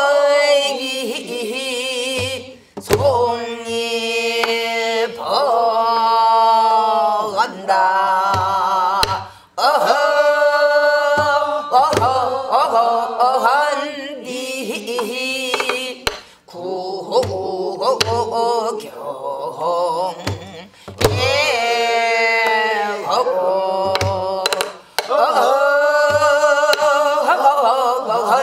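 A woman singing a Namdo japga, a southern Korean folk song, in long held phrases with wide vibrato and sliding ornaments. She accompanies herself on a buk barrel drum, with short, sparse drum strokes under the voice.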